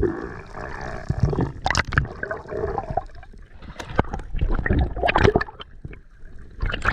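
Water splashing and gurgling around the camera in irregular bursts, with scattered sharp clicks and a sudden loud splash at the start.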